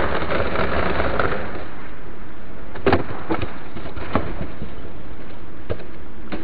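Skateboard grinding along a concrete ledge, then the skater slamming: a few sharp knocks as board and body hit the pavement, two close together about three seconds in and more near the end, over a steady hiss.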